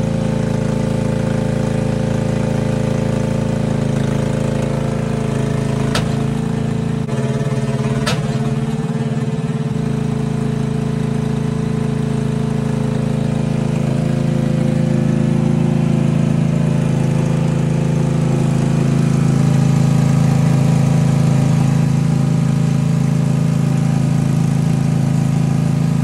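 Zero-turn lawnmower engine running steadily while the machine pushes dirt with its blade. Two sharp cracks come about six and eight seconds in, the drive axle breaking under the load.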